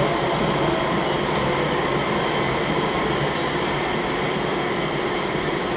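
Airport people-mover train running, heard from inside the car: a steady rolling noise with a faint steady whine.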